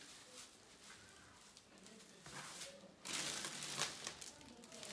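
Packaging rustling and crinkling as the boxed chair parts are handled, quieter at first and louder from about three seconds in with many short crackles.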